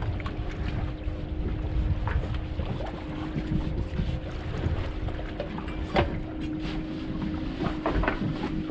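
Wind on the microphone and choppy sea water slapping against a boat's hull, with a few sharper slaps, the strongest about six seconds in, over a faint steady hum.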